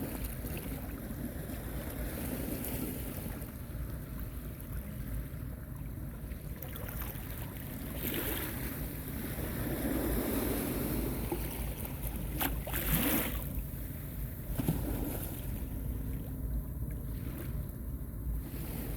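Sea waves washing onto a beach, with wind buffeting the microphone; the wash swells louder about halfway through.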